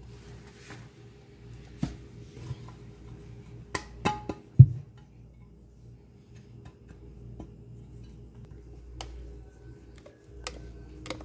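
A glass baking dish being handled and tapped as flour is shaken around its greased inside, with scattered light clicks and knocks and one heavier thump about four and a half seconds in.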